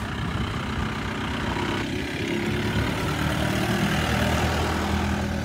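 A vehicle engine running steadily, a low continuous rumble with a faint steady pitch that grows a little stronger about two seconds in.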